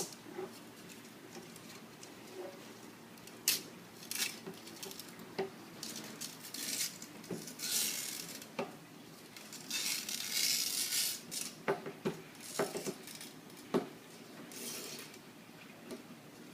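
Old window screen mesh being pulled out of its frame and handled: scattered clicks and light clinks, with a few stretches of rustling, the longest about ten seconds in.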